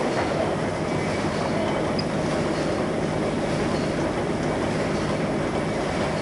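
YC520RY paper cup printing machine running: a steady, even mechanical noise with a low hum underneath, unchanging throughout.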